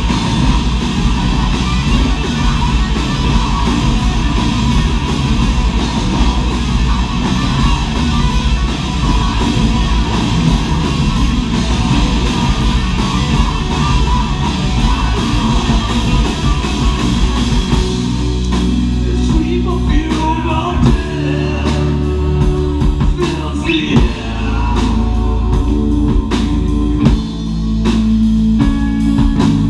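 Live heavy metal band playing loud distorted electric guitars, bass and drums, with vocals. About 18 seconds in the fast, dense playing gives way to held guitar notes with some sliding pitches, and the heavy full-band sound builds again near the end.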